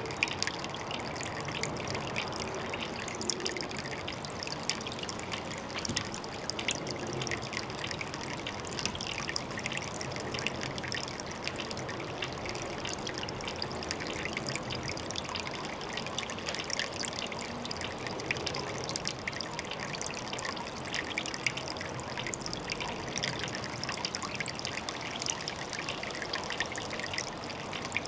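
Water trickling steadily at a pond: an unbroken run of small splashes and drips.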